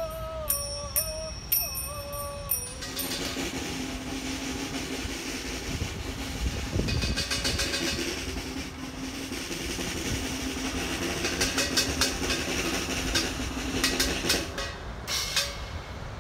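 Live performance accompaniment: a wavering melodic note with a few light strikes gives way, about three seconds in, to a dense rattling noise under a steady low drone held for about twelve seconds, with a run of sharp percussive strikes near the end.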